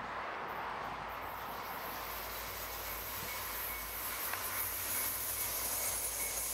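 Three VIA Rail F40PH-3 diesel locomotives hauling a long passenger train approach, their engines running as a steady rumble that grows louder over the last couple of seconds.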